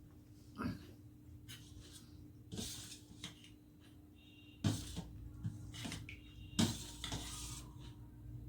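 Eating sounds: scattered clinks and scrapes of food being gathered from a plate, with short noisy bursts of chewing, over a faint steady hum.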